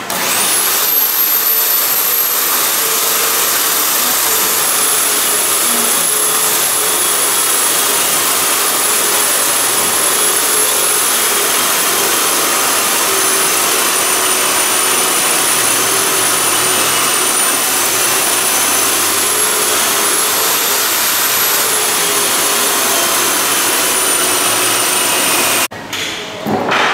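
Electric power tool motor spinning up fast to a high whine, running steadily for about 25 seconds with its pitch slowly sagging and wavering as it works, then stopping suddenly near the end.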